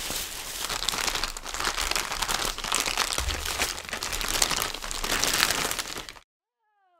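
Clear plastic bubble wrap crinkling and crackling as it is handled and pulled apart by hand to unwrap an item. It stops abruptly about a second before the end.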